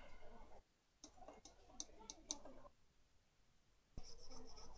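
Faint small clicks and rustling as tools are handled, then a toothbrush scrubbing a laptop motherboard, starting about four seconds in, to clean it after soldering.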